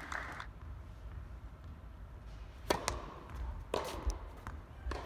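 Three sharp knocks of a tennis ball on an indoor court, about a second apart, each with a short ring. Applause dies away in the first half second.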